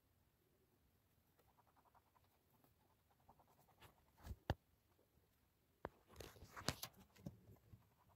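A rabbit chewing fresh fenugreek leaves, heard as a faint rapid crunching, then a few louder sharp clicks and crackles of dry hay about halfway through and again later.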